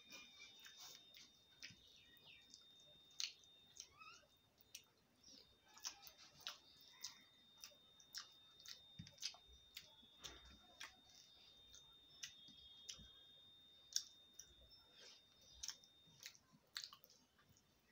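Quiet eating sounds of someone chewing and eating rice by hand: scattered soft mouth clicks and smacks all through, with a faint steady high tone in the background.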